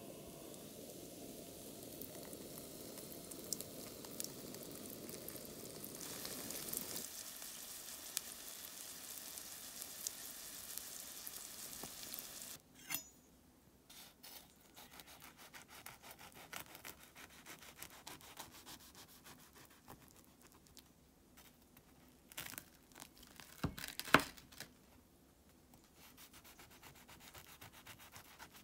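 Bread dough sizzling in an oiled frying pan, a steady hiss with a few small pops. About halfway through this gives way to a knife cutting through the crisp pan-fried crust, with small crunches and light knocks on the cutting board and one sharp knock about three-quarters of the way through.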